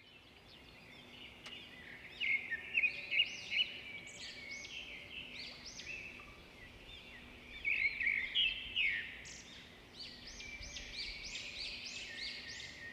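A flock of small birds chirping: many short, quick chirps that overlap, with busier spells about two seconds in and again about eight seconds in, over a faint steady background hum.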